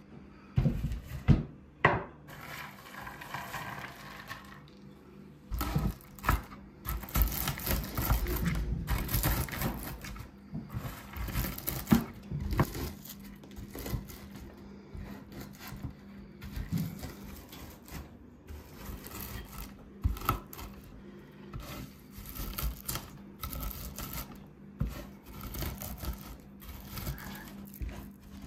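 Irregular knocks and taps on a wooden surface, as dough is handled and worked on a wooden board, with a louder stretch of rough rubbing noise from about six to ten seconds in.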